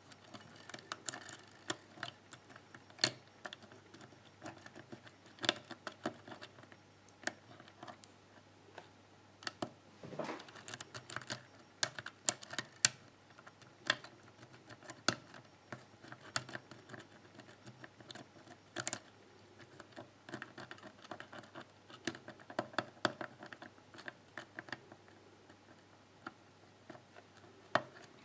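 Lock pick working the pins of a pin-tumbler lock cylinder under tension: irregular small metallic clicks and taps as pins are lifted and set.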